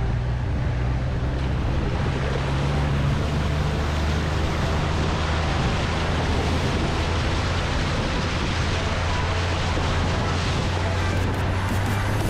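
A four-wheel-drive vehicle driving: a steady engine drone under a constant wash of tyre and wind noise, with the engine pitch shifting slightly now and then.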